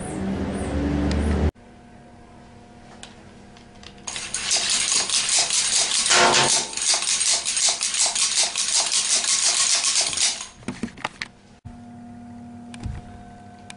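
A low rumble cuts off abruptly about a second and a half in. From about four seconds in, hard objects clatter rapidly for about six seconds, ending in a few separate clicks.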